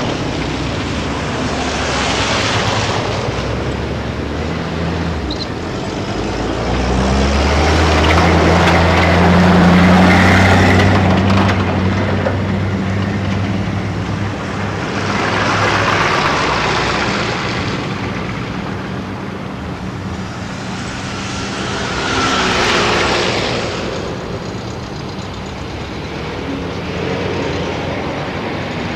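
Motor vehicles driving past on a snowy street, their noise swelling and fading several times, with one steady engine hum in the first half.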